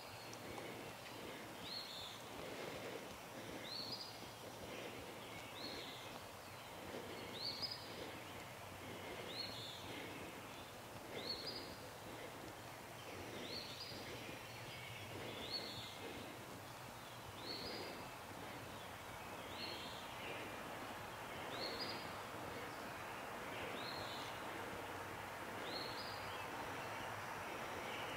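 A songbird repeating the same short, high phrase about every two seconds.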